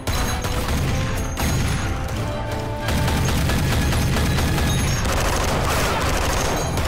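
Film-mix gunfire: sustained rapid shots from handguns and an automatic weapon, growing heavier about three seconds in, over a loud action score.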